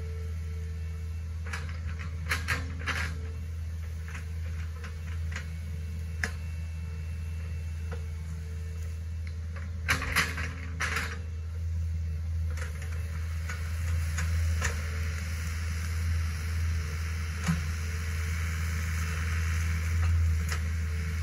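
Hitachi ZX48U mini excavator's diesel engine running steadily as it digs and swings, with sharp metal clanks and knocks from the bucket and arm: a cluster about two to three seconds in and the loudest pair about ten seconds in.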